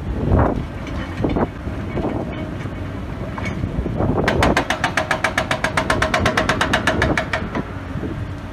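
Hydraulic breaker on a Hidromek excavator hammering rock: after a few single knocks over the machine's running diesel, it hammers in a fast, even rhythm of about ten blows a second for some three seconds, starting about four seconds in, then stops.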